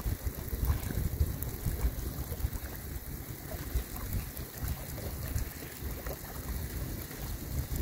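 Rain falling on a river, with gusts of wind buffeting the phone's microphone in an uneven low rumble, and faint scattered ticks of drops over a steady hiss.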